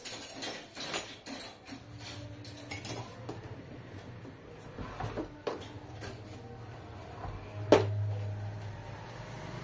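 Hard objects clattering and knocking irregularly as they are handled and set down on a work counter, with one sharp knock near the end that is the loudest sound.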